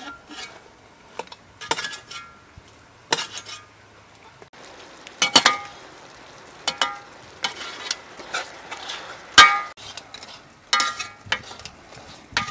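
Metal tongs and a ladle clinking and scraping against an aluminium cooking pot as duck pieces are turned in it, a dozen or so sharp ringing clinks. About four and a half seconds in, a steady sizzle of frying joins them.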